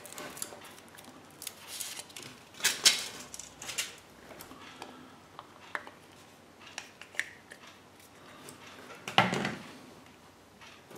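A Kinder Surprise chocolate egg being opened by hand: scattered small crackles, clicks and taps as the chocolate shell is broken apart and the yellow plastic capsule taken out, with a louder bump near the end.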